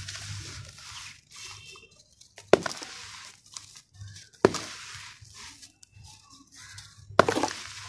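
Damp red dirt crushed and crumbled in bare hands over dry powdery sand, a gritty crumbling rustle with three sharp, louder crunches spread through it.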